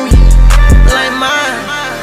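Hip-hop beat with no vocals: a deep bass note under sharp percussion hits and a melodic line. The bass and drums drop away about a second in, leaving the melody quieter.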